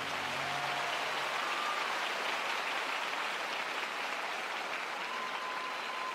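Arena crowd applauding steadily, with a few faint calls rising above it. The last note of the skating music dies away in the first second.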